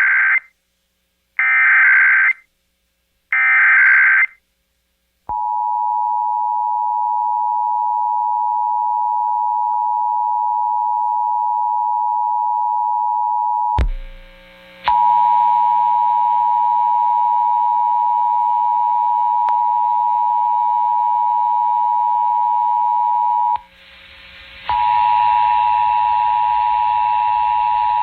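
Emergency Alert System tones. Short bursts of SAME header data screech for about a second each, three times in all with the first already under way, then the steady two-tone EAS attention signal (853 and 960 Hz) starts about five seconds in. The attention signal cuts out briefly about 14 and 24 seconds in and resumes with a hiss beneath it; together these open a Required Monthly Test.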